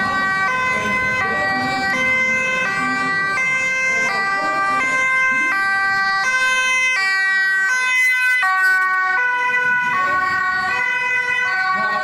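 Two-tone emergency siren of a fire service van, switching between a high and a low note about every half second as the van drives past.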